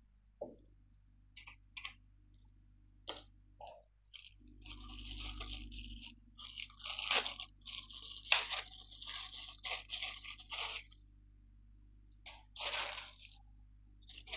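Plastic packaging bag crinkling and crackling as it is handled and opened, in short irregular rustles that come thickest from about four to eleven seconds in.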